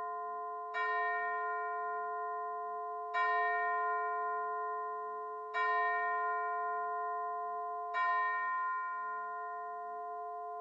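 A bell-like chime strikes the same note four times, about every two and a half seconds. Each note rings on and fades over a steady held tone.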